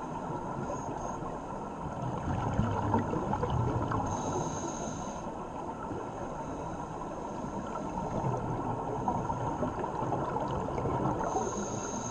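Scuba breathing heard underwater: two swells of rumbling, gurgling exhaled bubbles, each followed by a brief high hiss as the next breath is drawn through the regulator.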